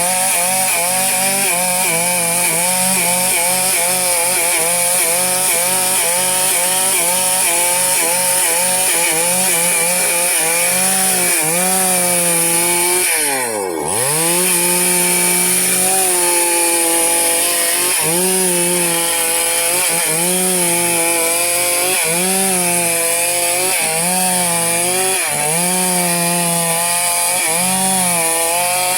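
Two-stroke chainsaw running under load as it cuts timber into rafters, its engine pitch wavering as the bar works through the wood. About halfway through the pitch drops sharply, as if the throttle is let off, then climbs back up as the saw is revved into the cut again.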